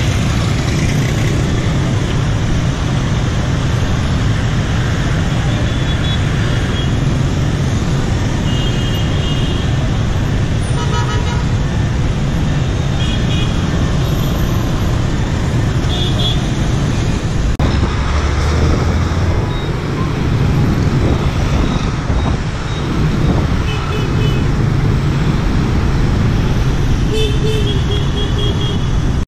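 Dense street traffic, mostly motorbikes and scooters, running steadily with a deep engine hum. Short, high horn toots sound again and again through the traffic.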